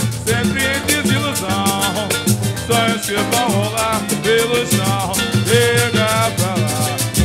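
Live samba band (pagode) playing: plucked strings carry a melody over a fast, steady beat of frame drum and hand drum.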